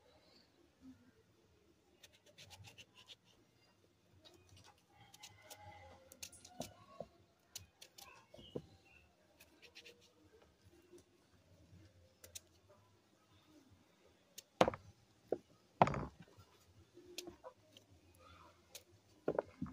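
Faint clicks and scrapes of a knife cutting peeled breadfruit into small cubes in the hand over a plastic bowl, with a few louder thumps near the end.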